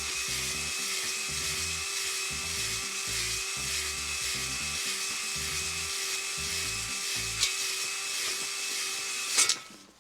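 Electric drill spinning a three-stone cylinder hone inside an oiled LS V8 cylinder bore. The drill runs at a steady speed while the stones scrape the bore, with a rhythmic low rumble as the hone is stroked in and out. The drill stops with a sharp clack about nine and a half seconds in.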